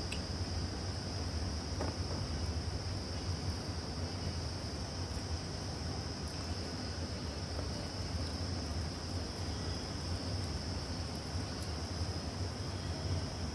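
Crickets chirring steadily in one high, unbroken band, over a steady low hum.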